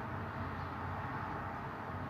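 Steady low background hum with a faint hiss.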